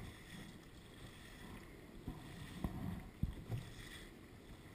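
Lake water rushing and slapping against the hull of a small Sunfish sailboat under way, with a few low thumps a little past the middle.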